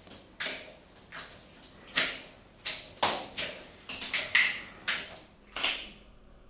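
A string of sharp, wet smacking and squelching sounds from gel-covered skin and swimsuits, irregular, about one or two a second.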